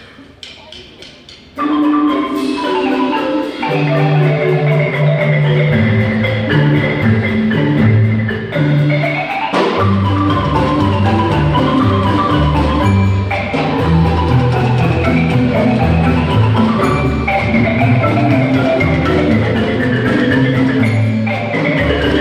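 Marimbas playing a fast, busy piece with a low bass line under the melody. The music starts about a second and a half in, after a few sharp clicks.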